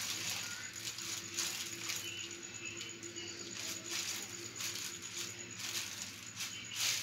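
Foil (mylar) balloon crinkling and rustling in irregular bursts as hands press it flat to squeeze the air out of it.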